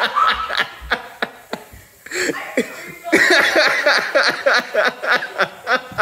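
Laughter in quick, rhythmic short bursts, mixed with coughing from someone choking on a mouthful of dry ground cinnamon.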